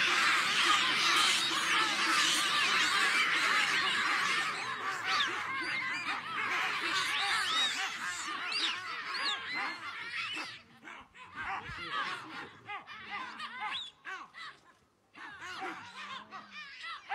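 Baboon troop screaming and calling: a dense chorus of many overlapping shrill calls that thins after about four seconds into scattered calls with short lulls.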